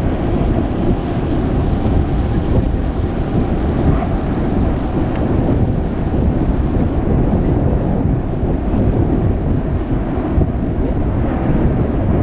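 Wind buffeting the microphone: a loud, steady low rumble with no clear tones.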